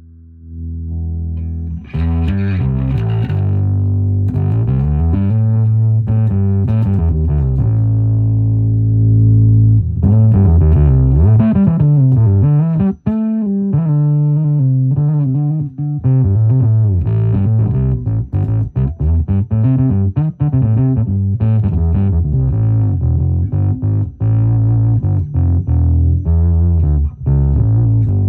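Electric bass guitar played through a Valeton Dapper Bass multi-effects pedal into a Fender Rumble 40 bass amp. A low note rings at the start, then a run of plucked notes with slides up and down in pitch, a brief break about halfway, and a busier line of quick notes after it.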